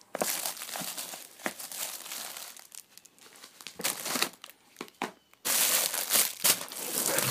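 Plastic bags and bubble wrap crinkling as hands pull parts out of a cardboard shipping box, in irregular bursts. It stops briefly about five seconds in, then resumes louder and denser.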